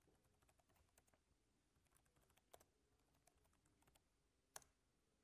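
Faint keystrokes on a computer keyboard: scattered light clicks, with two sharper taps about two and a half and four and a half seconds in.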